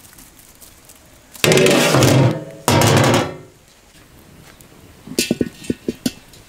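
Two loud, heavy knocks from a large iron kadai, then a quick run of lighter metallic clinks as the kadai is set on the stones of a wood-fire stove.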